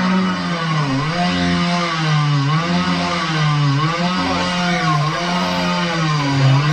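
Two-stroke chainsaw revving hard, its pitch dipping and climbing back about once a second as the throttle is worked.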